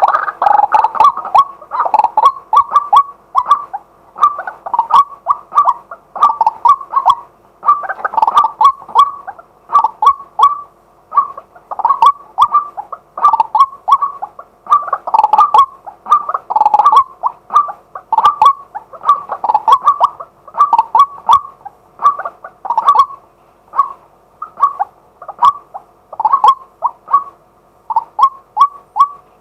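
Male white-breasted waterhen calling continuously, a fast run of short, loud, repeated notes at about two to three a second.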